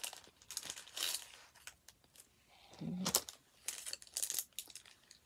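Kraft-paper bag and clear plastic brush sleeves crinkling and rustling in the hands as makeup brushes are taken out, in irregular crackly bursts with the loudest about three seconds in.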